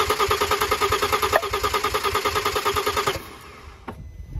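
Starter motor cranking an Audi 2.7 twin-turbo V6 that does not fire, with its fuel pump disabled for a compression test: a steady starter whine with even pulsing as the cylinders come up on compression. The cranking stops abruptly about three seconds in.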